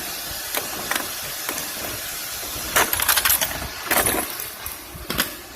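Plastic clicks and rattles of a fuse and relay box cover being worked loose and unclipped by hand, with a quick cluster of clicks a little under 3 seconds in, over a steady running noise.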